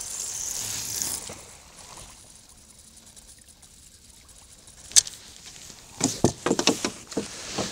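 Fishing rod and reel being handled in a small boat: a soft hiss at first, then a single sharp knock about five seconds in, followed by a quick run of clicks and taps.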